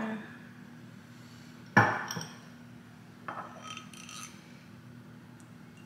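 Glass kitchenware knocking and clinking: one sharp glass knock with a short ring about two seconds in, then a lighter, ringing clink of glass on glass about a second and a half later, as glass bowls and a glass measuring cup are handled and set down.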